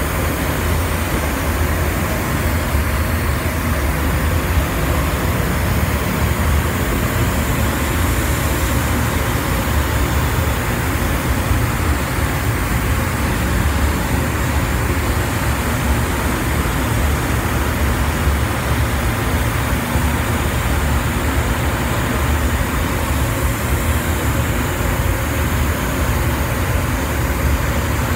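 Gravity-feed paint spray gun hissing steadily as compressed air atomizes paint onto a car's hood, over a steady low rumble.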